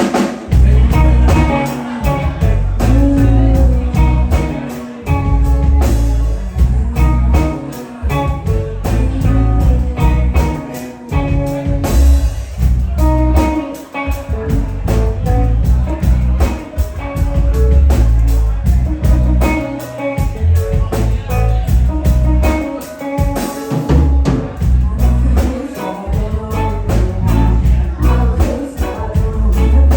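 Live band playing a song, with drum kit, bass and electric guitar up front and a strong, steady beat.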